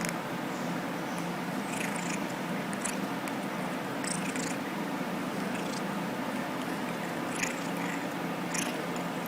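Persian cat making small sounds: a few brief soft clicks and rustles, scattered irregularly, over a steady background hiss and low hum.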